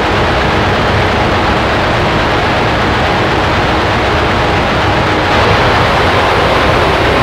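Raw black metal recording: a dense, steady wall of distorted guitars and drums, loud and unchanging.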